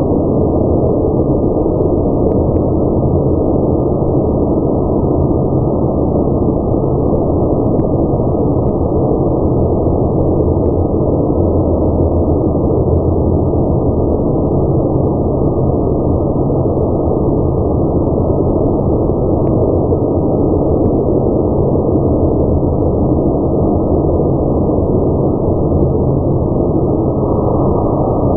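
Automatic car wash running: a loud, steady rushing noise that holds unchanged throughout.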